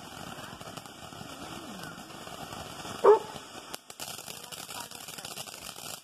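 Ground fountain firework hissing as it sprays sparks, its crackle growing denser from about four seconds in. A dog barks once, sharply, about three seconds in, the loudest sound here.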